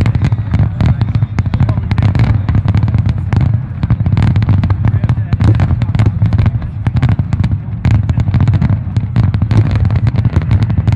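Fireworks display: a dense, irregular barrage of bangs and crackles from aerial shells and low effects bursting, over a steady low rumble.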